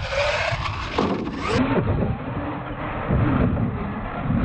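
Radio-controlled monster truck's motor revving up and down in a whine as it jumps and drives on packed dirt, with tyre noise.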